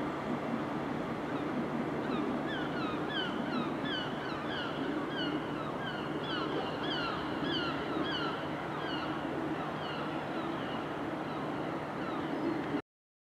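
Steady rumble of a train, with a high squeak that falls in pitch, repeating about twice a second; the sound cuts off suddenly near the end.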